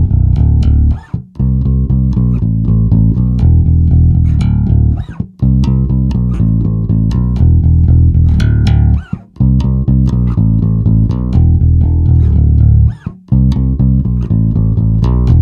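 Ibanez SRMS725 five-string multiscale electric bass with Fishman pickups, played fingerstyle in a fat groove tone. It plays a repeating riff in phrases of about four seconds, with brief breaks between them.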